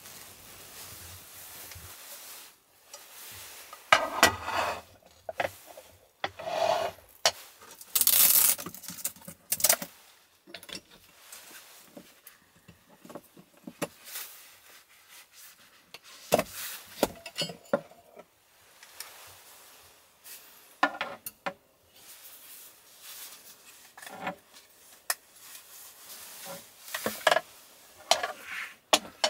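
Irregular handling sounds: rustles of a nylon down jacket, knocks and clinks of things being moved on wooden shelves and a wooden table, and near the end a small gas canister being handled at a compact gas burner, with a quick run of sharp clicks. The loudest is a long rustle about a third of the way in.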